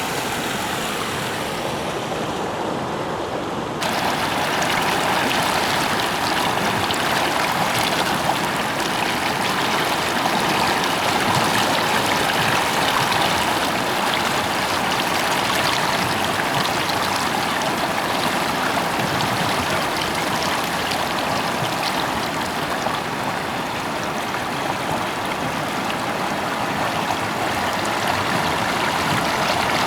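Fast-flowing mountain river rushing and churning, a steady dense noise of water, which becomes suddenly louder about four seconds in.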